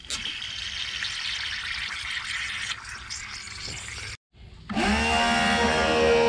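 A steady rushing hiss in the water plumbing, then after a short break a 12-volt DC water pump motor starts up, its hum rising quickly in pitch and settling into a steady whine as it pumps.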